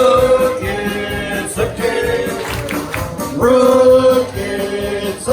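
Music with singing: a voice holds long, steady notes that step from one pitch to the next every second or so.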